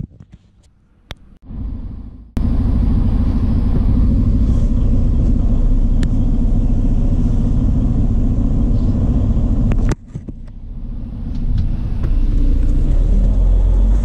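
Semi-truck diesel engine running, heard from inside the cab as a steady low drone that comes in abruptly a couple of seconds in. It cuts out around ten seconds, then builds back up as the truck gets moving.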